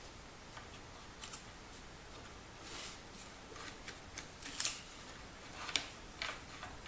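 Quiet handling of small trimmer parts: scattered light clicks and rustles, with one sharper click a little past halfway.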